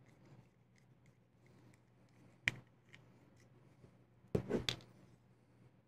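Faint handling clicks of a folding knife and small hand tools: one sharp click about two and a half seconds in, then a short run of clicks about two seconds later, over a low steady room hum.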